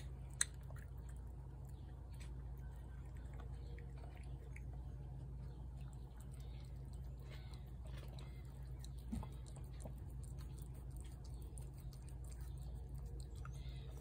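Cat eating wet cat food, faint wet chewing and licking clicks as it eats from the plate and then from an open tin can, over a steady low hum. A couple of sharp ticks come in the first half second.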